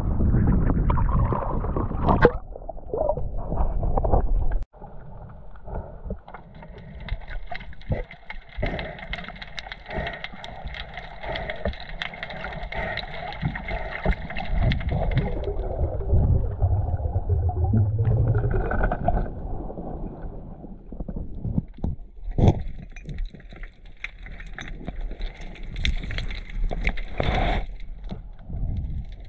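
Wind and water slopping against a kayak's hull at the surface. About five seconds in, the sound cuts to the muffled sound under water: scattered clicks and crackles, with a faint steady high whine during long stretches.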